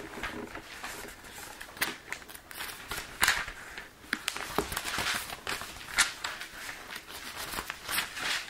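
Thin Bible pages being flipped through while looking up a verse: a run of irregular paper rustles and crinkles.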